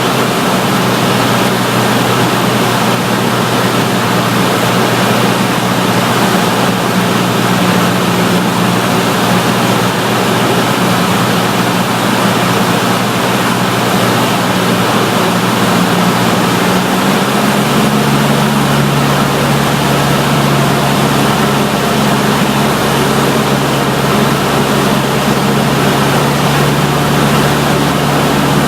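Cessna 152's four-cylinder Lycoming engine and propeller running, under a loud steady rush of air. The engine note changes about 17 seconds in, a shift in power setting.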